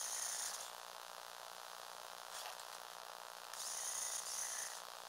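Small electric motor and gearing of a remote-controlled Lego Technic truck whining in two short bursts, one in the first half-second and another for just over a second starting about three and a half seconds in, over a steady background hiss.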